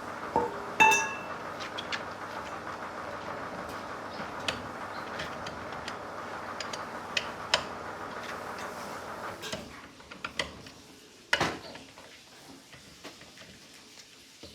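Metal tools and engine parts clinking and knocking, with one clink about a second in ringing briefly and a sharp knock near the end. A steady machine hum underneath stops about ten seconds in.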